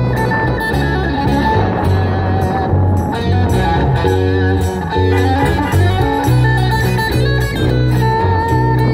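Live band music: an acoustic guitar strumming while a second guitar picks a lead line over steady, rhythmic low bass notes.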